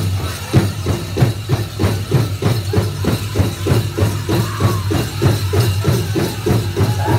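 Powwow drum: a large drum struck by a drum group in a steady, fast beat of about three strokes a second for a Chicken Dance song, with a hard stroke at the very start and singers' voices over it at times.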